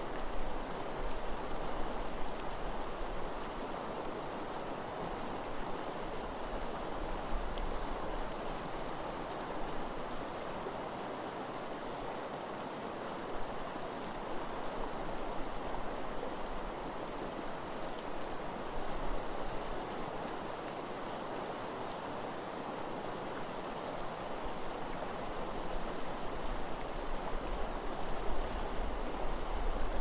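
Eel River running steadily over shallow gravel riffles, an even rushing of water. Low wind rumble on the microphone at the start and again near the end.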